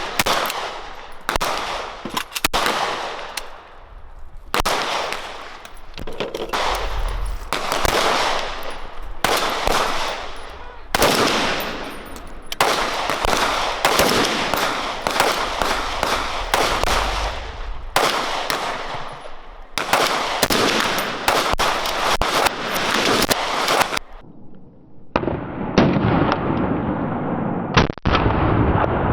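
Gunshots at a shooting range, fired irregularly about a second apart, each followed by a trailing echo.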